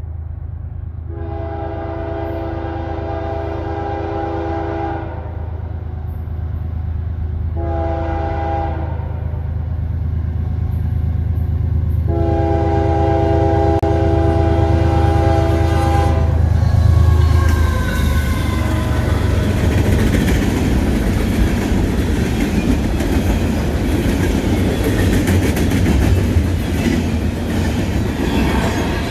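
A westbound CPKC freight train led by a GE ES44AC diesel locomotive approaches, sounding its horn three times: long, short, long. The engine grows louder and passes about 17 seconds in. Then the cars roll by with a steady clickety-clack and a few high wheel squeals.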